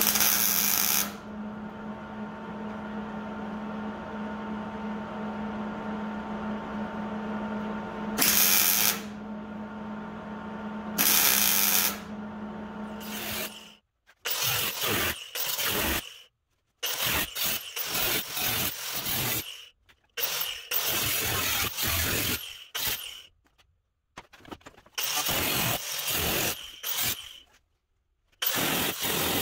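A power tool cutting into the rusted sheet metal of a truck cab. A steady motor hum carries three short, loud bursts of cutting noise, then comes a run of short, loud cutting passages, each broken off abruptly.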